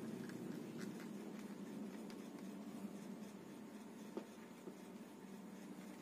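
Hands handling a Mitsuyama portable Bluetooth speaker: faint rubbing and scraping of fingers on its case, with a few small clicks, over a low steady hum.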